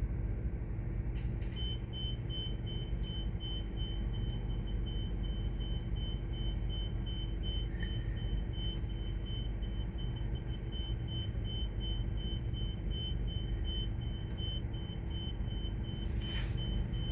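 A steady low engine rumble, with a rapid high electronic beeping at an even pace that starts about a second and a half in.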